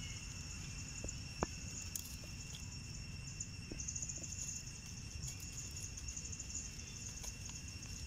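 Insects shrilling steadily in several thin high tones, with a fast pulsing trill from about four to six seconds in, over a low rumbling background. A few faint ticks and rustles come through, the sharpest about a second and a half in.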